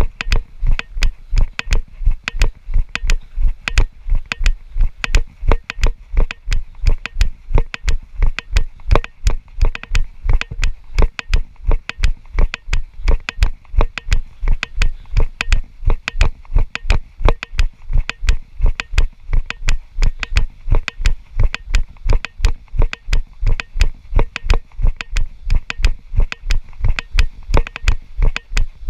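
Steady, evenly spaced thumps, nearly three a second, from a handheld GoPro being jolted or knocked as it is carried along.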